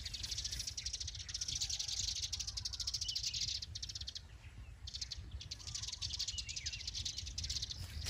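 Outdoor ambience of birds chirping over a high, fast-pulsing trill. The trill stops for about a second in the middle, then resumes.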